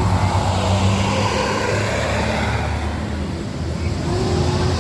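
Large diesel coach bus passing close by, with low engine rumble and tyre noise.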